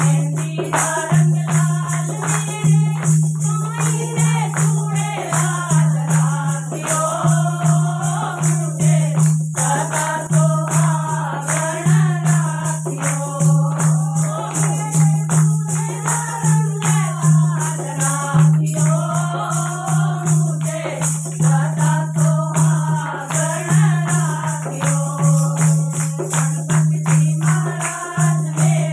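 A group of women singing a Hindi devotional bhajan to Ganesh together, accompanied by a dholak drum and hand-clapping that keep a steady beat.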